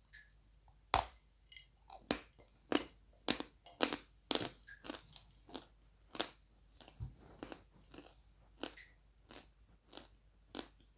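A person biting and chewing dry lumps of edible clay and chalk: a string of sharp, dry crunches, roughly one or two a second.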